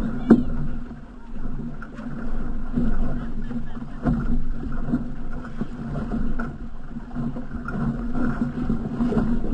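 Water splashing and rushing along an outrigger canoe's hull as the crew paddles, swelling and falling about once a second with the strokes.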